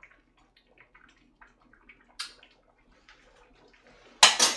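Braised mackerel and radish simmering in a pot on a gas burner, with soft bubbling pops and light ticks. A brief louder scrape comes about two seconds in, and a short clatter near the end.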